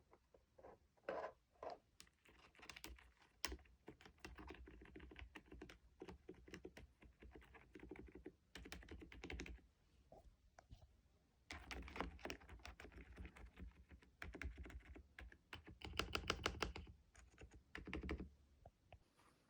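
Typing on a mechanical keyboard: quick runs of keystroke clicks in several bursts, with short pauses between them.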